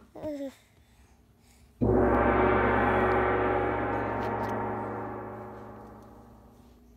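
A gong struck once about two seconds in, ringing on and slowly dying away over about five seconds.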